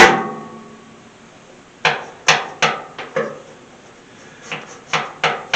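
A loud metallic clank that rings briefly, then two runs of quick knocks and clicks, three to five at a time, as the stiff selector switch on an old Lincoln arc welder is worked back and forth.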